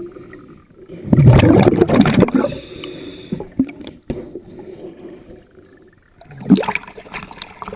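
A scuba diver's regulator breathing underwater: two loud gurgling rushes of exhaled bubbles, about a second in and again near the end, with quieter bubbling and water noise between.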